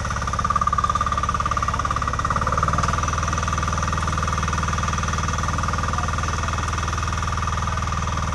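Single-cylinder diesel engine of a VST 95DI Ignito power weeder running steadily under load, its rotary tines tilling soil between crop rows, with a fast even chugging.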